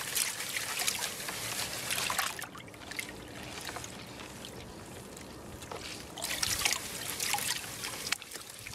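A plastic gold pan of gravel being dipped and swirled in a tub of muddy water, with water sloshing and pouring off the pan's edge and a few light clicks. It comes in two spells, with a quieter stretch in the middle.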